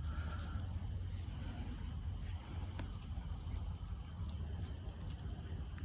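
Insects chirping in a steady high-pitched pulse, about three chirps a second, over a low steady rumble and a few faint clicks.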